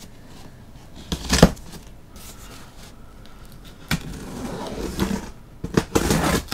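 A cardboard shipping box being opened by hand: packing tape torn and pulled off the seam, with the cardboard flaps scraping. There are short, sharp rips about a second in, around four seconds, and a longer burst near the end.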